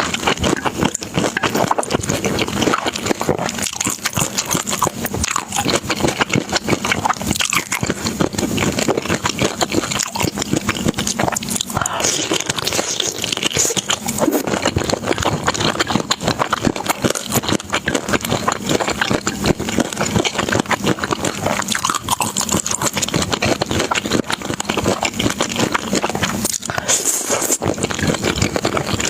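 Close-miked eating sounds: continuous chewing with dense, crackly clicks.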